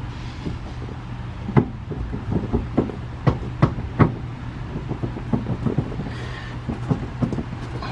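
Irregular metal clunks and knocks as the steering shaft is worked onto the rack-and-pinion's splined pinion shaft and moved down to line it up for its locking bolt. A steady low hum runs underneath.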